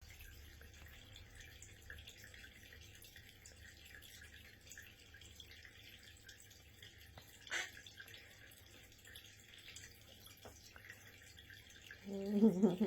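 Water dripping and trickling from a tap into a sink, with a single sharp click about seven and a half seconds in. A brief pitched voice sound near the end is the loudest thing.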